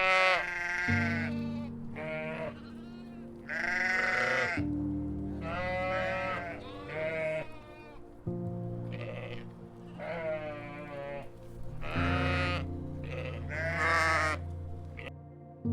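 Sheep bleating again and again, about one wavering bleat every second or two, over background music with sustained low chords.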